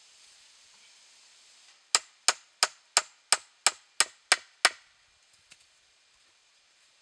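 Nine quick, evenly spaced blows of a hand tool on wood, about three a second, in a single burst.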